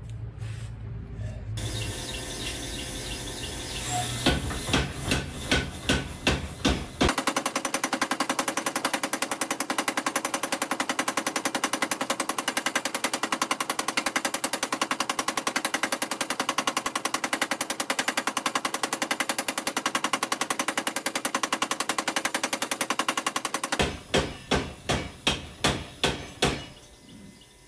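Power hammer striking a hot damascus billet, forge-welding and drawing it out. A few single blows speed up into a long run of rapid, continuous blows, then near the end it slows back to single blows and stops.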